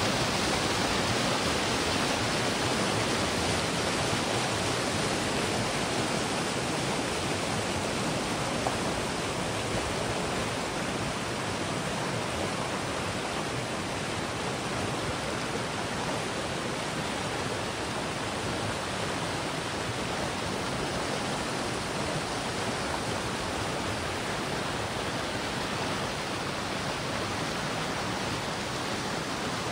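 Creek water rushing steadily over rocks, an even rush of noise with no other sounds standing out.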